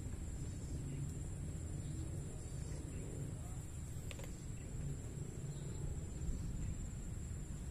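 Steady high-pitched insect chorus over a low rumble, with a single sharp click about four seconds in.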